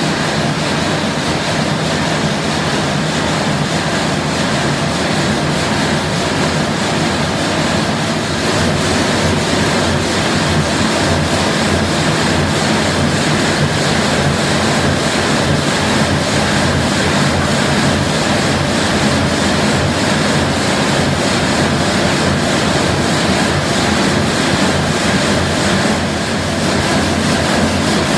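Loud, steady din of a large marble-cutting saw running in the factory hall, with cooling water pouring down over the block being cut.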